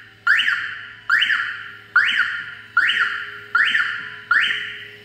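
Electric actuator on a high-pressure sewer jetter's outlet valve, switched from a radio remote and responding instantly: six quick operations about one every 0.8 seconds, each starting sharply and fading over most of a second.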